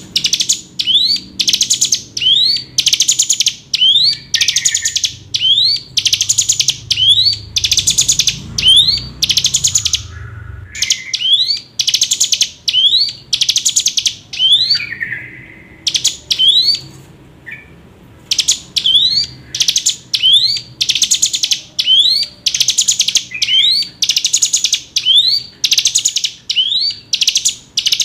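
Ciblek gunung, a prinia, singing its repeated call: a quick rising note followed by a short buzzy note, over and over about one and a half times a second, broken by two short pauses.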